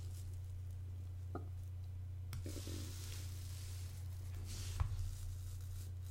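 Quiet room tone with a steady low hum, broken by a few faint clicks (about a second and a half, two and a third, and nearly five seconds in) and soft rustles.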